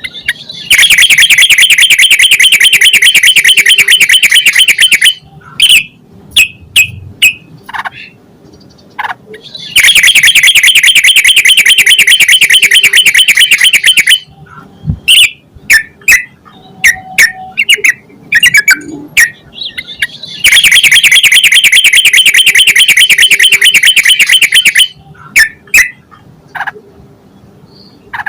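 Yellow-vented bulbul (trucukan) singing: three long, loud bouts of rapid, evenly repeated chattering notes, each lasting about four and a half seconds, with short single calls in between.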